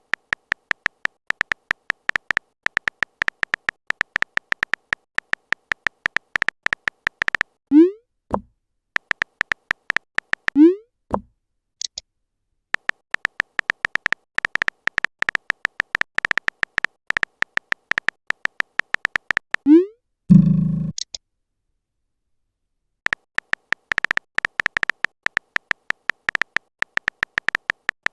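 Chat-app text-typing sound effect: rapid, evenly spaced short electronic beeps as message text appears, pausing a few times. Short rising blip tones, message-notification style, come about 8, 10 and 20 seconds in, and a brief low buzz follows just after 20 seconds.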